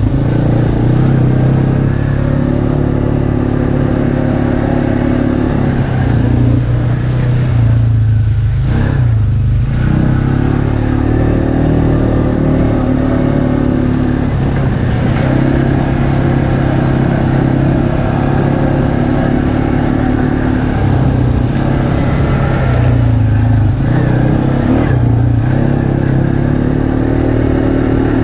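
ATV engine running steadily as the quad rides along a dirt trail, the throttle easing off and coming back on about eight seconds in and again about twenty-three seconds in.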